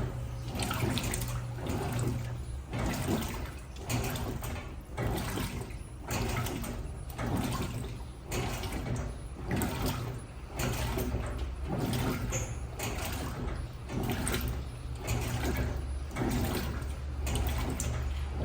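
Electrolux LTM16 top-loading washing machine agitating a load in water: water sloshing in surges about once a second over a steady low motor hum.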